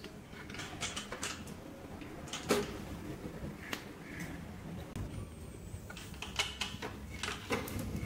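A cat eating dry kibble from the plastic compartment of an automatic cat feeder: scattered, irregular crunches and clicks.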